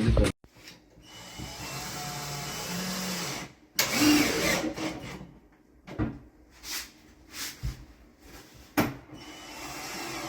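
A small electric motor running, first steadily for a couple of seconds and then in several short bursts with pauses and knocks between them.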